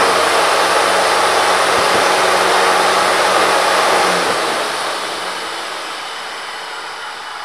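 Evaporator fan blowing through an open Prihoda fabric defrost damper: a loud steady air rush with a low motor hum. About four seconds in the fan is switched off; the hum stops and the air rush fades away as the blades spin down and the fabric damper falls closed.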